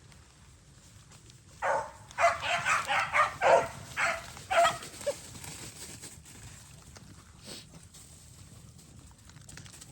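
Beagles baying, the cry of hounds running a rabbit's scent: a quick string of about eight short, pitched bays over about three seconds.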